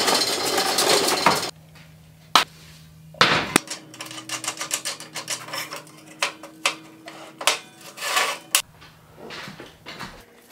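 Casters of a wheeled workshop table rolling over a concrete floor for about a second and a half. Then a run of metal clicks and clanks as steel brackets and clamps are set and fitted on a perforated steel fixture table, with one louder knock a little after three seconds.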